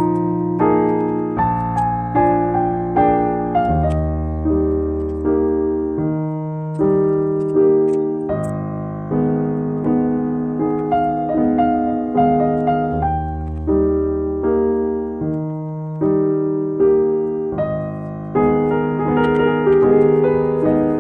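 Background music: a piano playing a slow, steady pattern of chords over a low bass line.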